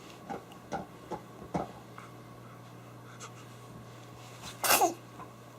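A baby sneezes once, a short sharp burst about three-quarters of the way in. A few faint short noises come before it.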